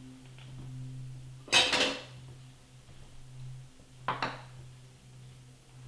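A metal spoon and a ceramic bowl clattering as chicken is moved from the bowl back into the frying pan: one loud clatter about a second and a half in, and a shorter clink about four seconds in, over a steady low hum.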